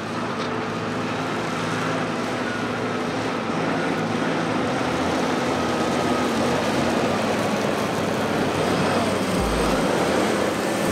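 Tractor engine running steadily while towing a bale chaser across a stubble field, with a low thud near the end.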